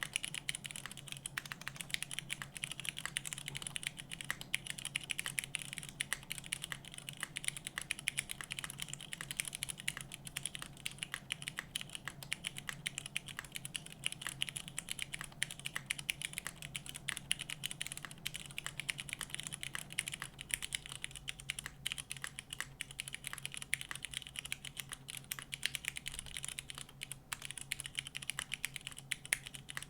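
Continuous fast typing on a mechanical keyboard with unlubed Cherry MX Brown Hyperglide tactile switches on 65g springs, an aluminium plate and GMK doubleshot ABS keycaps: a steady stream of keystroke clacks.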